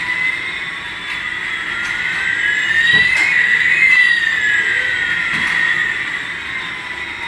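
Electronic sound effect from a battery-powered light-up toy: several tones sweep up and down and cross each other, meeting about halfway through, over a steady high tone.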